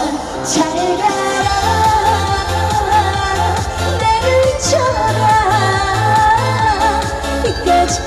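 Korean trot song played live: a sung melody over a backing track with a steady pulsing bass beat.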